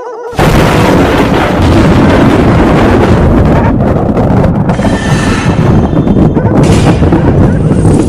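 Horror sound effect: after a brief silent gap, a loud, dense booming rumble starts suddenly and keeps going, with brighter hissing patches over it about five and seven seconds in.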